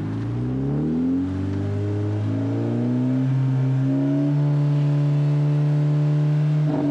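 VW Golf engine and exhaust revved up and held at a steady high rpm for several seconds, then dropping back at the very end, during a stationary exhaust noise test. It measures over the 90 dB the car is permitted: too loud.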